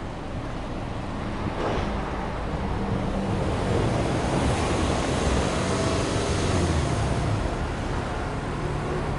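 Exhaust of a Subaru Legacy Touring Wagon 2.0R's EJ20 flat-four (boxer) engine, heard at the twin tailpipes: running, brought up in a gentle rev about two seconds in, held for several seconds and easing back down near the end.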